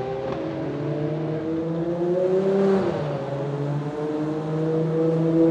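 Ferrari 599XX's V12 engine running at low revs as the car pulls slowly away. Its pitch rises gradually, drops suddenly about three seconds in, then holds and climbs again.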